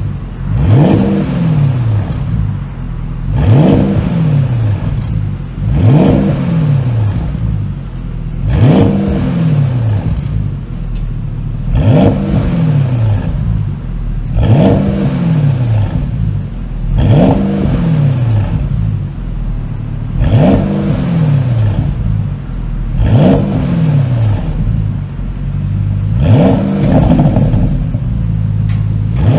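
Porsche Panamera GTS's twin-turbo V8 revved over and over with its exhaust flaps held fully open by an ECU tune: about eleven quick blips, one every two and a half to three seconds, each rising and falling back, with pops and crackles as the revs drop.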